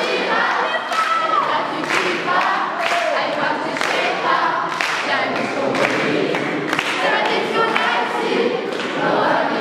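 A crowd of young people singing a song together, with sharp claps on the beat about once a second.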